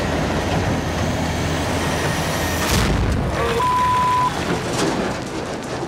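Heavy rock truck's engine rumbling steadily in the cab. About three seconds in comes a sudden heavy boom, then a single steady beep lasting under a second.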